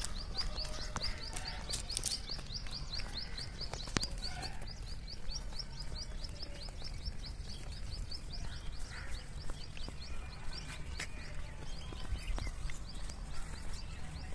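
A small bird calling a rapid, even run of short high chirps, about seven a second, which fades out about four seconds in, over a steady low rumble. A single sharp click sounds about four seconds in.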